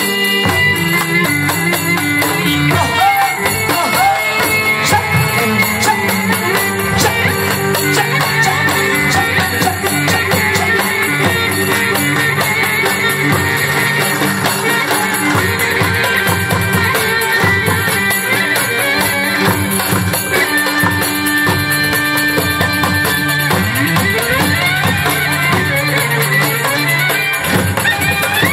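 Romani dance music played by a live wedding band: a melody with sliding notes over a steady drum beat.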